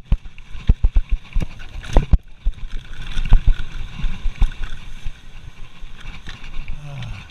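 Mountain bike descending a bumpy dirt trail: a steady rolling rumble from the tyres and the ride, broken by frequent sharp knocks and rattles as the bike hits bumps. The loudest knocks come about two seconds in and again a little after three seconds.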